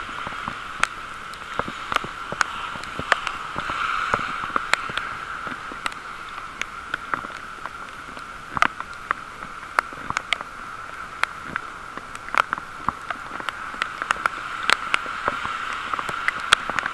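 Raindrops ticking irregularly on the camera, over the steady hiss of bicycle tyres on a wet road.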